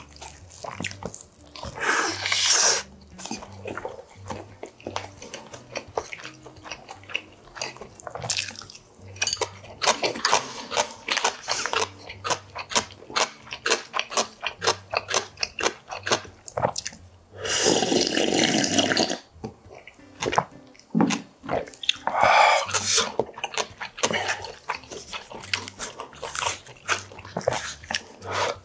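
Close-miked eating sounds of a man eating rice and Korean side dishes: chewing and mouth smacks, with chopsticks and a wooden spoon clicking against ceramic dishes. Several longer wet slurps from a bowl of broth, the longest and loudest about 18 seconds in.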